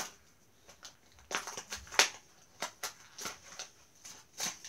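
Plastic blister packaging of a Hot Wheels toy car crackling and crinkling as it is pried open by hand, in a string of irregular crinkles and snaps, the loudest about two seconds in.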